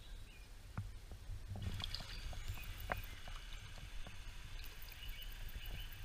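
Shallow stream water running, with scattered small splashes and knocks as a hand holds a trout in the water. A brighter hiss of moving water comes in about one and a half seconds in.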